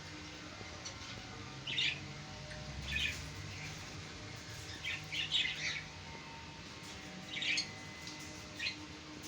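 Pet parrots chirping in short, scattered bursts, about five clusters of quick high chirps a second or two apart.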